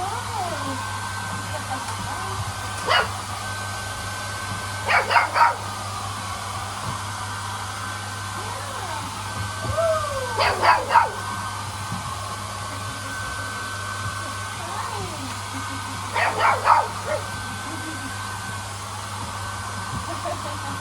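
Hair dryer blowing steadily while Golden Retriever puppies bark in four short bursts of quick yaps, with whimpers in between.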